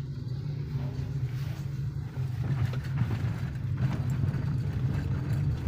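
Hyundai Verna being driven, its engine and road noise making a steady low rumble that grows slightly louder. The engine is running smoothly with no knocking, after new spark plugs and a cleaned throttle body.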